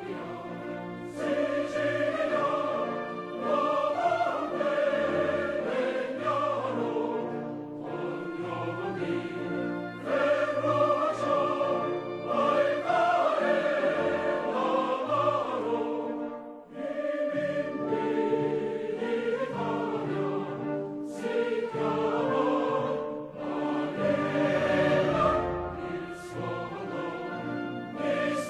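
Choral music: a choir singing long, sustained phrases.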